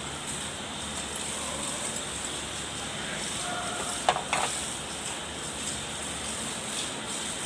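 Two sharp metallic clinks close together about four seconds in, metal tools or parts knocking during rotovator repair work, over a steady background hiss.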